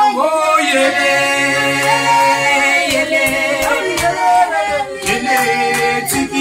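Several voices singing a cappella in harmony, with long held notes that glide from one pitch to the next. Sharp hand claps join in a few times from about halfway, more often near the end.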